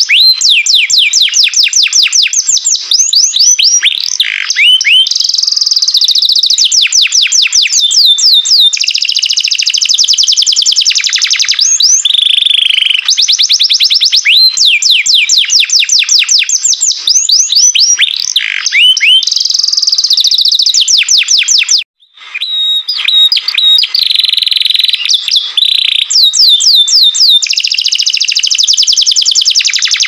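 Green canary singing a loud, continuous song of fast rolling trills and held whistled notes, breaking off briefly about two-thirds of the way through.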